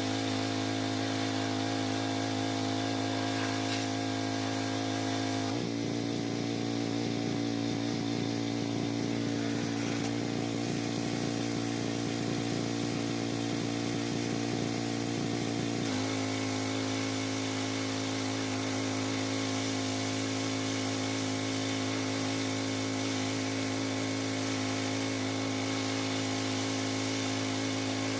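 Pressure washer engine running steadily. For about ten seconds in the middle, starting about five seconds in, its note changes and turns rougher, then it settles back to the steady run.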